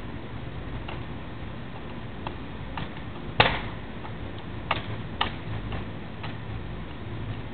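A pen clicking and tapping against fingers while being spun: scattered light ticks at an uneven pace, with one sharp, louder clack about three and a half seconds in. A steady low hum runs underneath.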